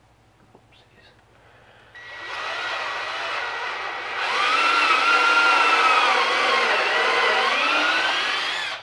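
Cordless drill boring through a wooden crossbar and the plastic toboggan base beneath it. The motor starts about two seconds in and gets louder about two seconds later as the bit bites, its whine sagging and rising with the load, then stops near the end.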